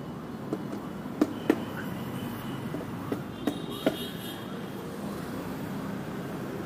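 Steady hum of city street traffic, with a handful of short sharp clicks or knocks about half a second to four seconds in, the loudest two close together about a second and a half in.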